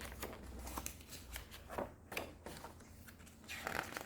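Faint paper rustling with light, irregular ticks: the pages of a picture book being turned and handled.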